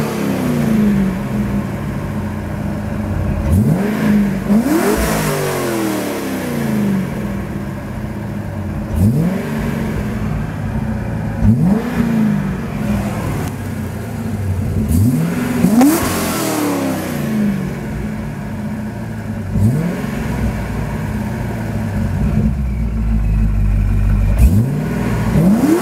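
The ProCharger-supercharged 6.0-litre LS2 V8 of a 2005 Chevrolet Corvette idling and being revved in quick blips while standing still. Each rev rises sharply and falls back to idle, repeated about seven or eight times.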